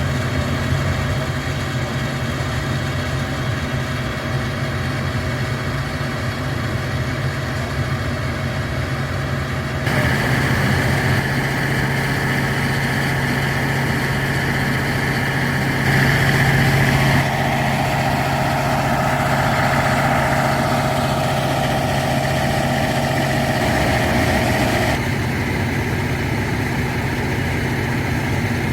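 KiHa 183 diesel railcar's engine running with a steady hum. The sound steps up about a third of the way in, takes on an added mid-pitched tone around the middle, and drops back near the end.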